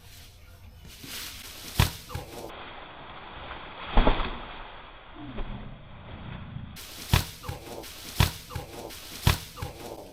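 Pieces of cut wood being tossed and dropped onto a pile: five sharp knocks at irregular intervals, the loudest about four seconds in, with rustling and shuffling between them.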